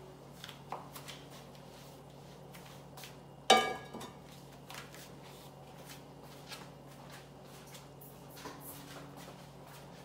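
Lidded pot of sweet potato leaf stew simmering on a gas stove: faint scattered pops and ticks over a steady low hum, with one loud ringing clink about three and a half seconds in.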